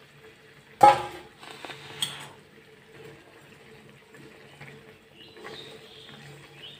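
A loud metal clank about a second in, then a steel spoon stirring drumstick pieces through a simmering tomato gravy in a steel kadhai: soft wet sloshing with light scrapes on the pan.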